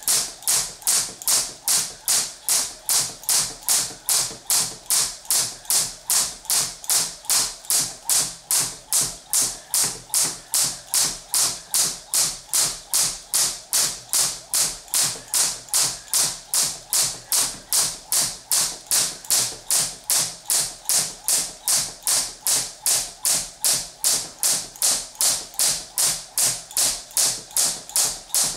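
Crossrope jump rope striking the floor on each turn in a steady, even rhythm, a little over two strikes a second.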